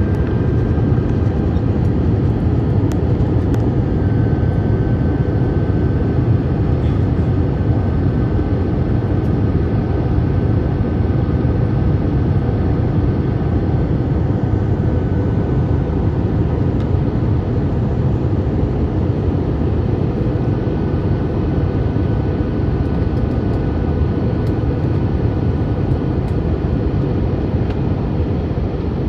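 Steady cabin noise of an Airbus A321 in flight: a deep, even roar of engines and airflow heard from inside the passenger cabin, with a faint high whine over it.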